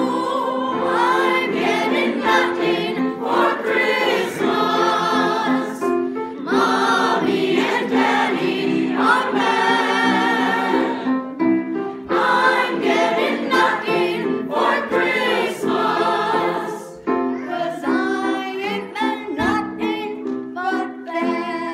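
A choir singing an upbeat novelty Christmas song, with held notes beneath the moving voices.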